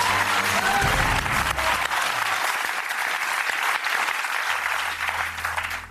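Studio audience clapping, dying away just before the end.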